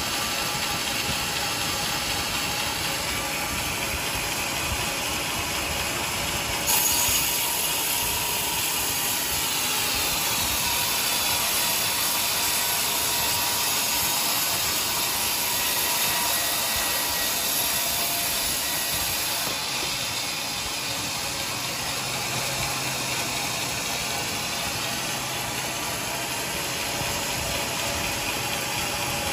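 Large band sawmill running, its blade cutting a teak beam that the rail carriage feeds through it. The cutting hiss sets in sharply about seven seconds in and eases off around twenty seconds, over the steady running of the machine.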